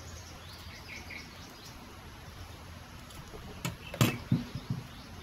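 A kitchen knife set down on a wooden table: a sharp knock about four seconds in, followed by a few softer thuds as the cutting is handled. Before it, only steady background noise with a few faint bird chirps.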